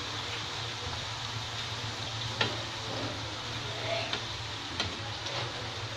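Fafda strips deep-frying in hot oil, a steady sizzle, with a couple of sharp clicks.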